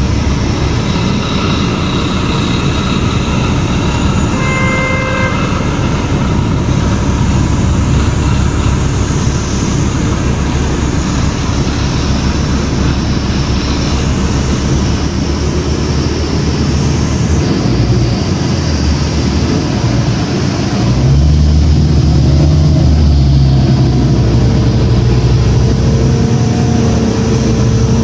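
Inside a 2006 New Flyer D40LF city bus, its Cummins ISL diesel engine running with steady road and cabin noise. A short tone sounds about five seconds in. The engine gets louder and pulls harder about three-quarters of the way through, as the bus accelerates.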